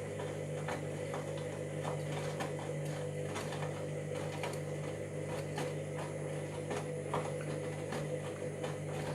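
Washing machine motor turning the drum in a wash cycle: a steady hum with irregular clicks and knocks over it. The owner suspects a fault in the drum or motor.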